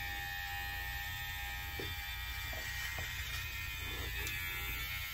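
Handheld electric hair trimmer buzzing steadily as it is run over a nearly bald scalp to shave it down.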